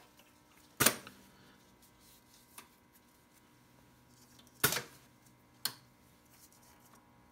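Air-operated presser foot of a SEWPRO 441-Pro cylinder-bed leather sewing machine clacking as it lifts and drops on the foot pedal: two sharp clunks about a second in and just before five seconds, then a lighter knock, over a faint steady hum.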